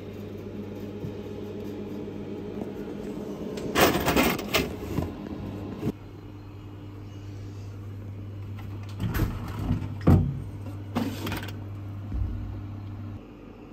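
Steady electrical hum of an opened hot-drinks vending machine, with short bursts of rattling and clatter from handling its parts and coins about four seconds in and again around nine to eleven seconds.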